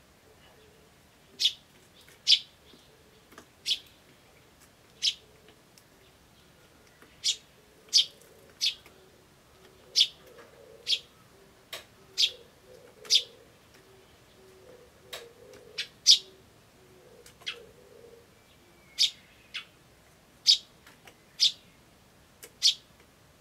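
Eurasian tree sparrow chick chirping: short, high, single chirps about once a second at uneven spacing, feebler than a sparrow chick usually calls. An Oriental turtle dove coos faintly in the background through the middle.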